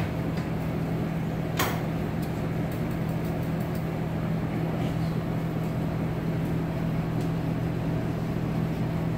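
Steady low machine hum of kitchen fans and appliances, with a single sharp click about one and a half seconds in.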